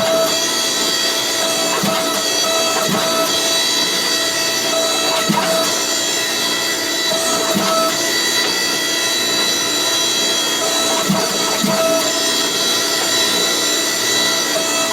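Steady machine running with a hum of several high tones, and soft knocks at uneven intervals of about one to two seconds.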